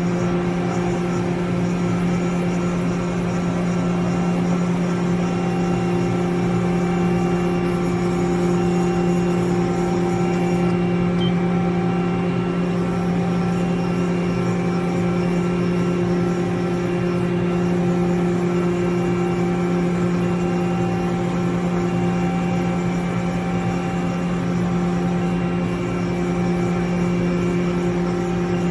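Mori Seiki NH4000 DCG horizontal machining centre running under power: a steady mechanical hum with a strong low tone and its overtones. A faint high tone comes and goes every second or two.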